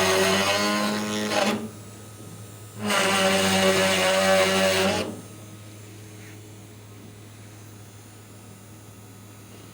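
CNC router spindle boring into the end face of a panel: two drilling passes, a loud pitched buzz that falls away about a second and a half in, then returns from about three to five seconds in and stops, leaving only a faint steady hum.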